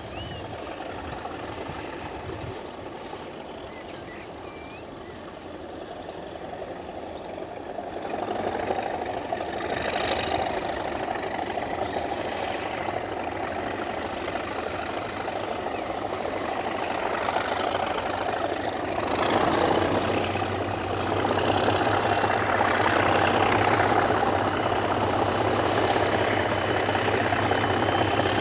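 Heritage diesel locomotive engine working under power, growing steadily louder from about eight seconds in as it approaches, and louder again near the end, with a faint high whistle slowly rising in pitch through the middle.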